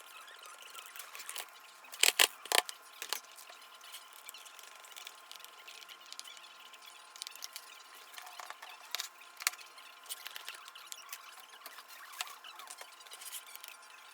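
Faint scratching and small clicks of a screwdriver turning out screws from the plastic underside of an Ecovacs Deebot N79 robot vacuum. A few sharp clicks come about two seconds in and again around nine seconds.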